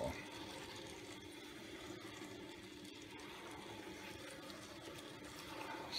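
Faint, steady sizzle of a West Bend Stir Crazy electric popcorn popper heating its oil and unpopped kernels, before any popping starts.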